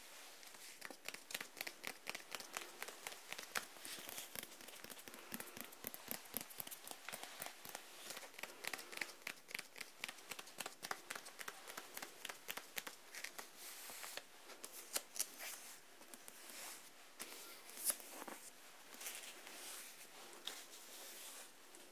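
Fingertips and nails tapping and scratching on the cover of a thick Japanese dictionary held close to the microphones: a fast, uneven run of crisp taps and scratches, with a few sharper taps near the end.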